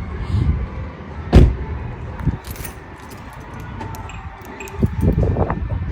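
A loud thump about a second and a half in, with a smaller knock soon after and a cluster of knocks and clatter near the end.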